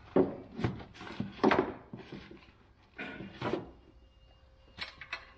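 A handful of separate metallic clunks and knocks with a chain rattle, as an engine slung on a shop crane's chain is worked loose in the engine bay.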